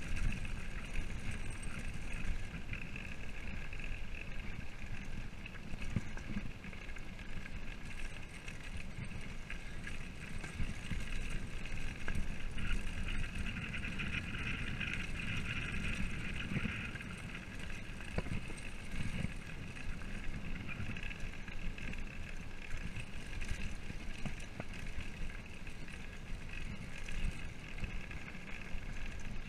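Mountain bike rolling down a rough dirt road, with a steady rumble of tyres on gravel and the bike rattling over the bumps.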